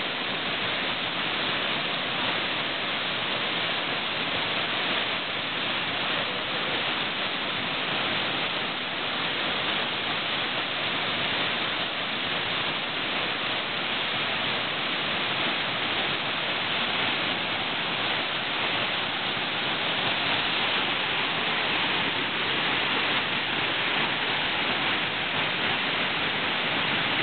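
Waterfall rushing steadily, loud and close, water pouring down a rock face.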